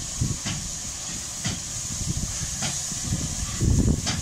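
West Country class steam locomotive 34092 City of Wells hissing steam as it moves slowly along the platform, with four sharp beats about a second apart.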